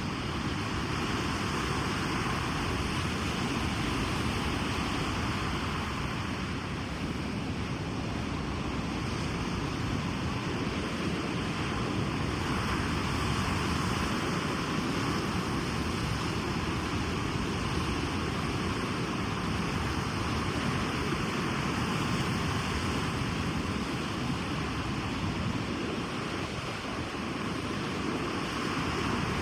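Ocean surf on a beach: a continuous rush of breaking and washing waves that swells and eases slightly.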